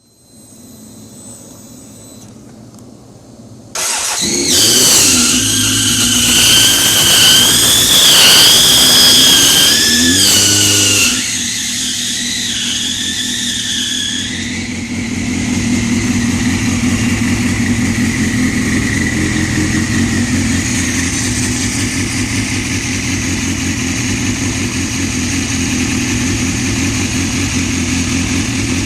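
2001 Suzuki GSX-R's inline-four engine starting about four seconds in and running, with a loud, wavering high-pitched squealing sound from the left side of the engine, like bad belts on a car. The squeal weakens after about ten seconds, and a fainter steady whine carries on over the running engine.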